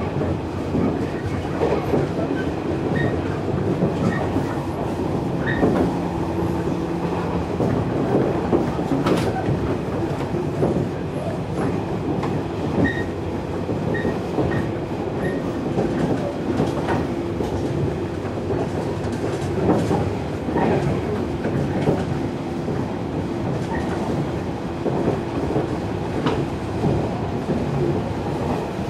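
A JR 115 series electric train running at speed, heard from inside the car. Steady wheel-on-rail running noise carries a steady hum, with irregular clicks as rail joints pass under the wheels.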